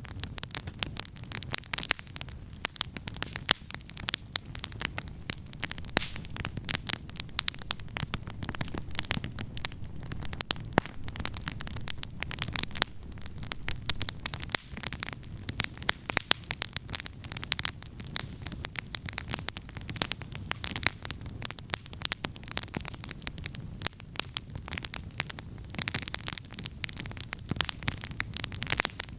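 Wood campfire crackling, with many sharp snaps and pops coming thick and fast over a steady low rumble.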